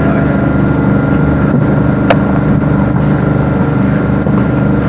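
Interior running noise of a Class 387 electric multiple unit on the move, heard inside the passenger cabin: a steady, loud hum with a sharp click about two seconds in.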